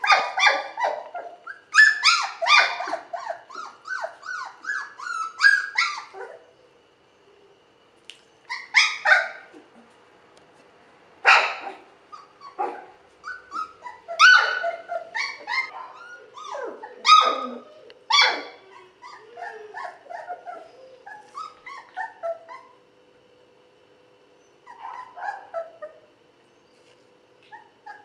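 Young puppies whimpering and yipping in clusters of short, high, pitch-bending calls, with a few sharper barks, separated by brief pauses.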